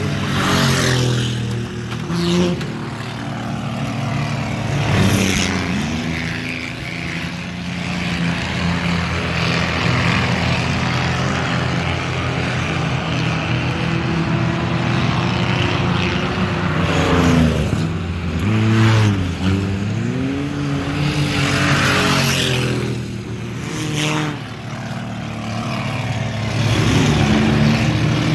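Several four-cylinder enduro race cars running laps on a dirt oval, a steady mix of engines with their pitch rising and falling again and again as individual cars rev through the turn and pass close by, loudest at a handful of close passes.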